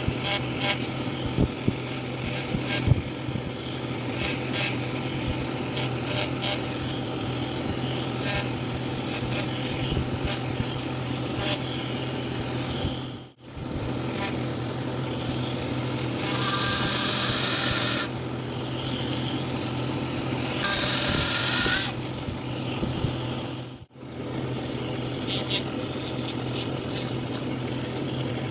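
Carving tools working wood: a continuous rubbing and rasping over a steady low hum. There are three takes with brief cuts between them, and the middle take has two louder bursts of hissing grinding.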